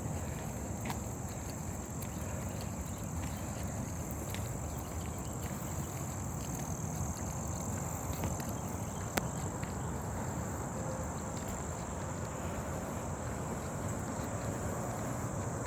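A steady, high-pitched insect chorus, like crickets, over a low rumble, with a few faint clicks and one sharper click about nine seconds in.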